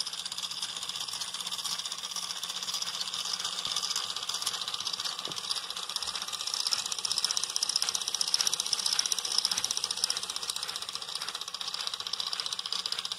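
Small electric gear motor inside a homemade wooden robot dog running steadily, a fast, even buzzing rattle from its plastic gear train and crank-driven legs.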